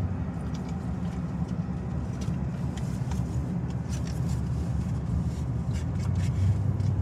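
Steady low rumble of a car's engine and road noise heard inside the cabin while driving, with a few faint ticks.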